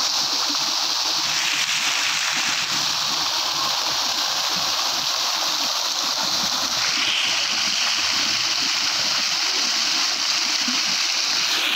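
Fountain's many vertical water jets splashing down onto a tiled basin: a steady rush of falling water.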